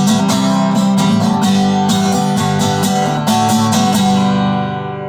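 Country song ending on acoustic guitar: strummed chords, then a final chord left ringing and fading away from about four seconds in.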